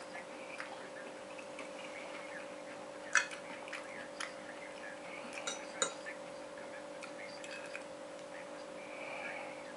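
Metal spoon clinking and scraping against a plate while scooping rice: a run of sharp clicks, the loudest about three seconds in and a few more over the next three seconds. A faint steady hum runs underneath.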